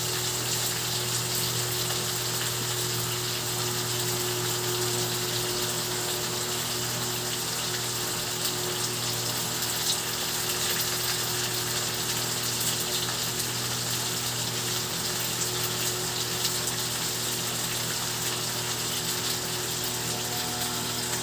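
Steady stream of running water for a pet parrot's bath, an even rushing with a faint low hum underneath.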